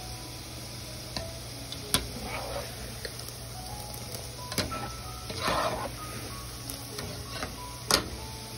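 Light background music, a simple tune of single notes one after another, with a few sharp clicks and a brief burst of crackling about halfway through.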